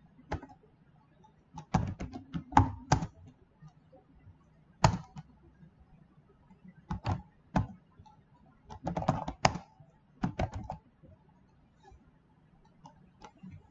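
Computer keyboard typing: short, irregular bursts of keystrokes separated by pauses.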